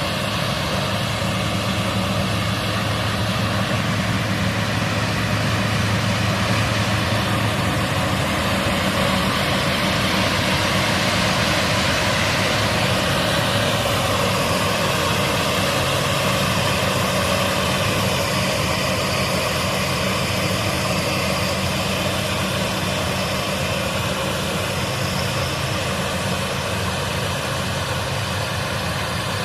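KZS-812 combine harvester working in the field, its D-260 inline-six diesel and harvesting machinery giving a loud, steady drone that swells slightly midway.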